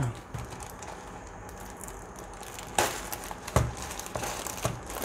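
Thin plastic wrapping bag crinkling as it is handled and pulled open, with two louder crinkles about three seconds in.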